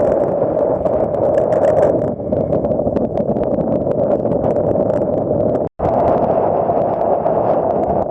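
Strong wind buffeting a camera microphone, a loud steady rush, broken off for an instant about six seconds in.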